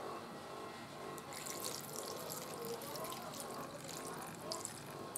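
Cooled sugar syrup poured from a plastic bowl onto sliced young mango in a plastic container, splashing and trickling, starting about a second and a half in.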